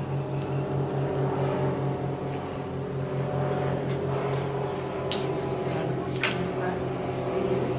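Steady mechanical hum of a running motor, with a few light clicks about five and six seconds in.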